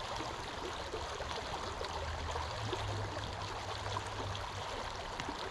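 Small shallow creek trickling over rocks in a steady babble, with a faint low hum underneath that is a little stronger about halfway through.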